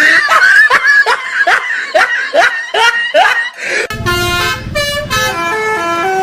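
A quick run of short squeaky calls, each falling in pitch, about three a second, like laughter. About four seconds in, a telolet bus horn takes over, playing a tune of held notes that step up and down in pitch.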